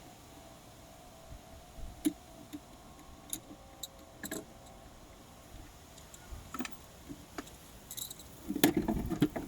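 Scattered light clicks and knocks of plastic trim and small parts being handled, with a cluster of louder knocks near the end.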